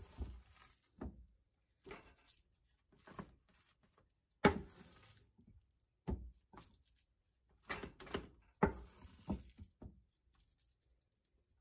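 A wooden spoon scraping and knocking against a stainless steel pot while scooping out a thick ground-beef mixture: a string of separate clunks and scrapes, the loudest about four and a half seconds in, dying away after about ten seconds.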